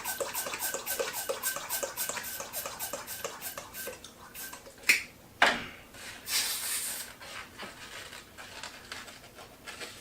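Latex twisting balloons being handled and twisted by hand, with rubbery squeaking and rubbing. Quick regular clicks, about four a second, run through the first few seconds; two sharp squeaks or snaps come about five seconds in, followed by a brief hiss.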